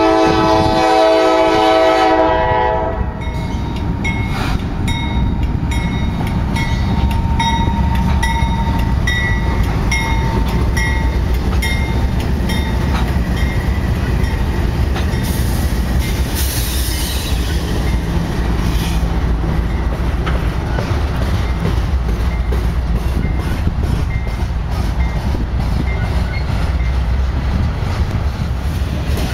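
Diesel freight locomotive's air horn sounding a chord, cutting off about three seconds in. Then the steady rumble of the Norfolk Southern locomotives and freight cars rolling past, with rhythmic clicking of wheels over rail joints and a brief high screech about halfway through.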